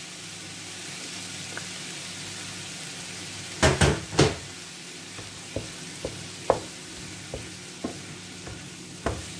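Onions and bell peppers with minced meat sizzling steadily in a non-stick frying pan. Three loud knocks come close together about four seconds in, then a wooden spatula stirs with light, irregular knocks against the pan.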